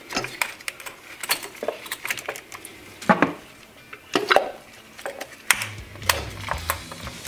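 Ignition coil packs being handled and pushed down into the spark plug wells of a Gen 2 Coyote 5.0L V8: a string of irregular sharp plastic clicks and knocks.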